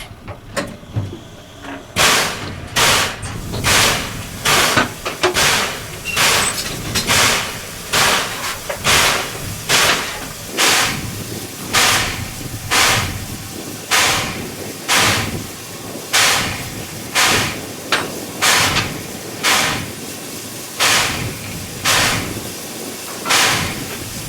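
Steam locomotive puffing steam in a steady, even rhythm, about one sharp puff a second, starting about two seconds in.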